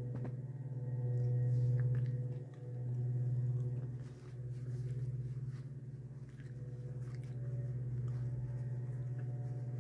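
A steady low hum, swelling and easing a little, with faint chewing and soft ticks of someone eating a potato skin.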